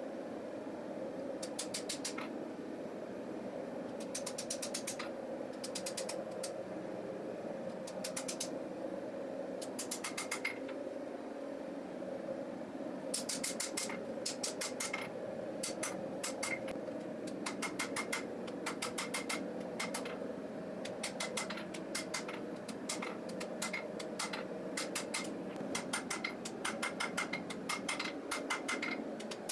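Hammer peening a hot knife blade on the anvil: runs of quick, evenly spaced strikes, coming in short bursts early on and more steadily from about halfway through, over a steady hum.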